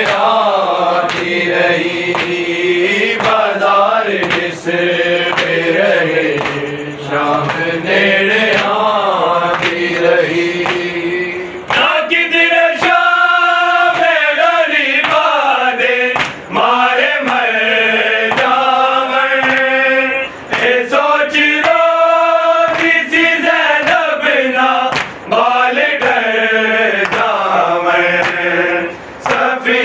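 Men chanting a noha together in Punjabi/Saraiki, a lament sung in mourning, with repeated sharp slaps of hands beating on chests (matam) keeping time under the voices. About twelve seconds in, the singing becomes clearer and more strongly pitched.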